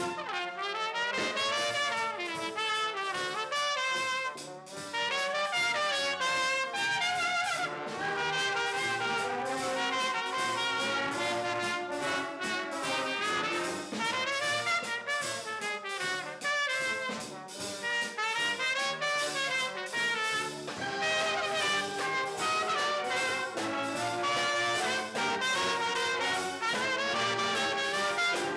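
Brass band music: trumpets and trombones playing a moving melody over a steady percussive beat.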